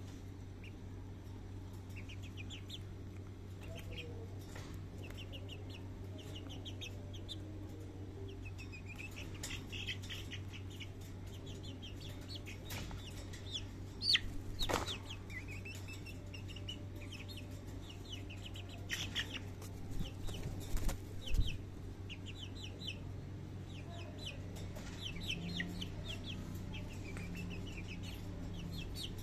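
White bantam chickens giving short rapid clucking calls over and over, with a burst of wing flapping about 14 seconds in as one bird is lifted by hand, and more flapping and scuffling around 20 seconds.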